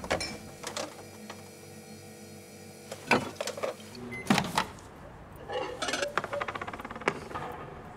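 Kitchen appliance sounds: a refrigerator humming steadily, then a few sharp clicks and knocks from a microwave oven's door being handled about three seconds in, followed by a run of rapid ticking from its mechanical timer dial.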